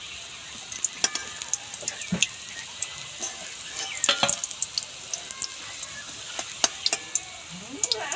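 Vegetable rolls deep-frying in hot oil in a kadai: a steady sizzle with frequent sharp crackles. A few times a metal spatula knocks against the pan as rolls are lifted out.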